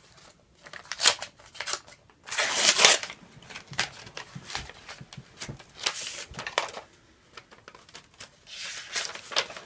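Paper rustling and crinkling in short bursts as an envelope is opened and a folded letter drawn out and unfolded. The loudest, longest rustle comes about two and a half seconds in.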